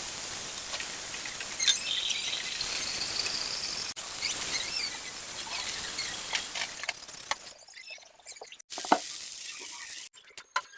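Food sizzling in a hot pan, a steady hiss with a few clicks, which stops about seven seconds in, leaving scattered light taps and clicks.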